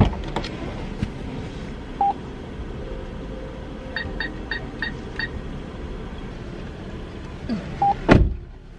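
Drive-up bank ATM beeping: a single beep about two seconds in, then five quick key-press beeps in a row around the middle, and another single beep near the end, followed by a sharp knock.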